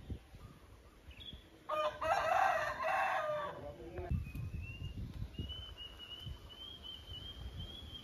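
A rooster crows once, about two seconds in: one long call of a little over two seconds. After it, a faint thin high whistle rises slowly and holds.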